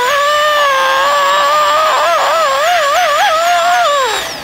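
Dental handpiece whining as its bur cuts a primary tooth during the gingival reduction of a crown preparation. The pitch dips and wavers as the load changes, and the handpiece winds down near the end.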